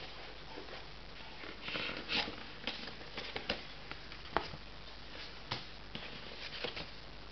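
Paper rustling and crinkling as hands handle a cardboard fried-chicken bucket and the paper inside it, with a few light taps and clicks, the sharpest a little past four seconds in.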